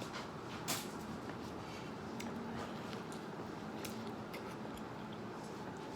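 Faint eating sounds from someone chewing mango: a few soft wet clicks and smacks over low room noise, the clearest less than a second in.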